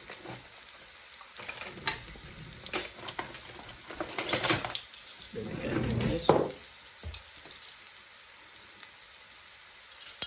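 Chopped chicken tikka sizzling as it fries in an aluminium karahi on a gas hob, with a few spells of pan and utensil clatter and several light clinks near the end.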